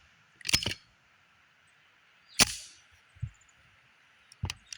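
A few sharp metallic clacks from a Tisas M1911 .45 pistol being handled and readied to fire; the loudest, about two and a half seconds in, rings briefly.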